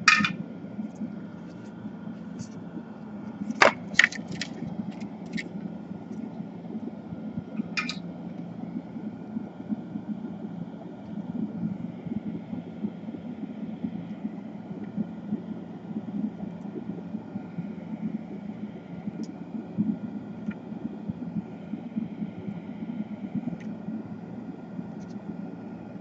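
Steady low background hum, with a few sharp clicks of soldering tools being handled in the first several seconds, the loudest pair about four seconds in.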